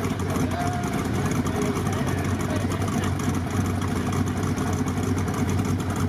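Classic car engine idling with a steady low rumble.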